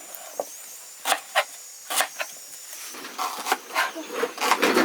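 Cooking sounds over the fire: irregular sharp clicks and knocks with some scraping, busier in the last second or two, over a faint steady hiss.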